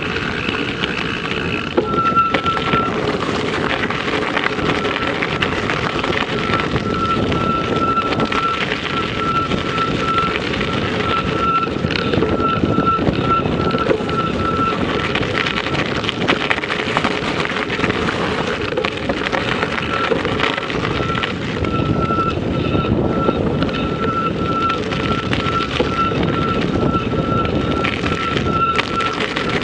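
Steady rumbling noise of a vehicle on the move, with wind buffeting the microphone. A thin, high pulsing whine runs through it, dropping out for a few seconds at a time.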